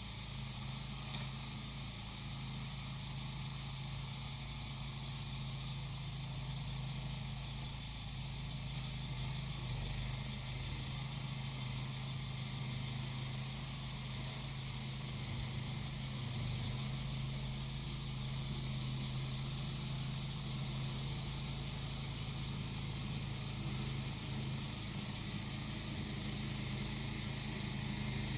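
Small engine of a grass-cutting machine running steadily at a low, even pitch while cicadas sing, their high pulsing buzz growing stronger from about halfway through. A single short click about a second in.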